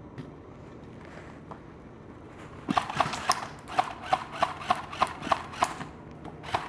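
Quick footsteps on a hard floor starting about two and a half seconds in, about three steps a second.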